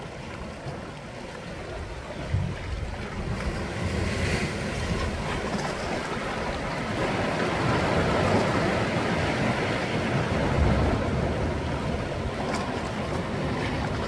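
Sea waves surging and washing over a rocky shoreline, a continuous rush of surf that swells louder through the middle.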